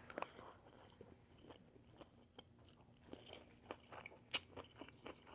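Faint chewing and small mouth clicks of someone eating close to the microphone, a few soft ticks scattered throughout.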